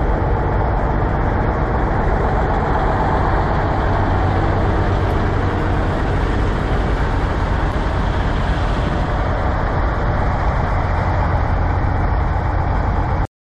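Kenworth W900 semi truck's diesel engine idling steadily, with an even low hum; it cuts off suddenly near the end.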